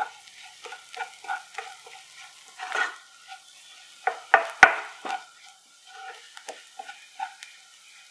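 A black spatula stirring and scraping sautéing onions, curry leaves and spices around a nonstick pan over a light sizzle, in short repeated strokes, with a louder flurry of scrapes about four to five seconds in.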